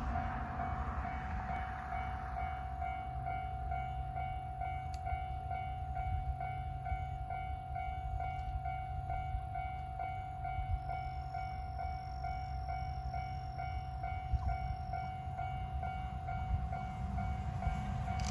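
Wind noise on the microphone with a steady high-pitched tone held throughout. Near the end the sound of a JR West 521 series electric train approaching grows louder.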